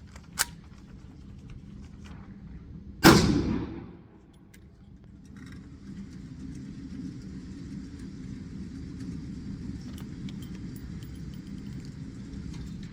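A single shot from a Kel-Tec PMR30 .22 Magnum pistol about three seconds in, ringing out briefly, preceded by a sharp click. From about halfway on, a steady rumbling noise with faint ticks.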